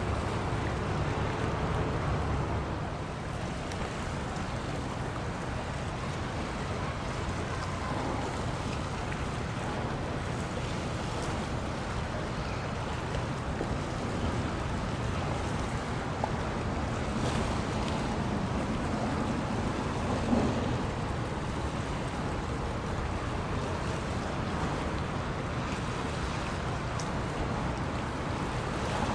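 Steady outdoor wash of wind and small waves at the water's edge, with wind buffeting the microphone, and a single short thump about twenty seconds in.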